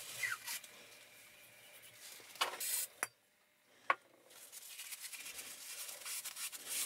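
Paper rag rubbing and scraping in the bore of a cast-iron brake wheel cylinder, wiping it clean, with a few sharp metal clicks. The loudest click comes about four seconds in.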